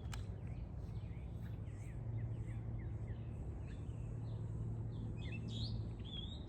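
Small birds chirping, many short quick notes throughout, with a louder run of calls about five and a half seconds in, over a steady low background rumble.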